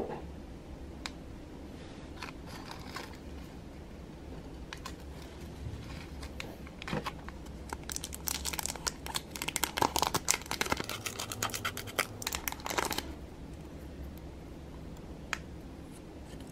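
Small clear plastic packaging bag crinkling and tearing as it is opened by hand. A dense crackle runs for about five seconds through the middle, with scattered light rustles and clicks before and after.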